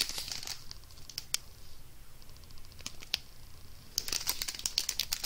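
Small clear plastic bags of diamond painting drills handled in the hands: scattered sharp clicks and light crinkling of the plastic, with a quick run of clicks about four seconds in.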